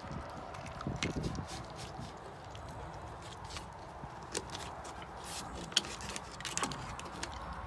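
A corgi gnawing on a bone-shaped chew, its teeth making irregular crunching clicks, one sharper click about two thirds of the way through.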